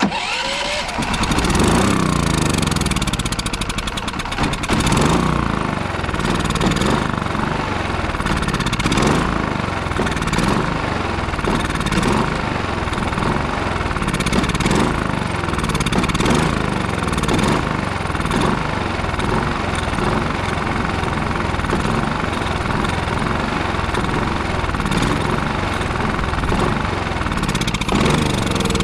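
Westinghouse iGen4500DF inverter generator's engine catching on starting fluid and running unevenly, its speed rising and falling every couple of seconds. The owner takes it that fresh fuel has not yet reached the carburetor, so it only keeps going on the starter spray.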